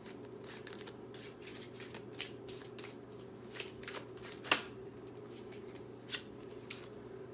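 A deck of cards being shuffled by hand: irregular soft clicks and riffles of the cards, with the sharpest snap about four and a half seconds in.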